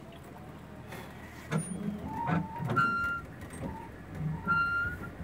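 Popopo riverboat's single-cylinder diesel engine running steadily. From about a second and a half in, a run of loud brief knocks and short high-pitched squeaks or calls sounds over it.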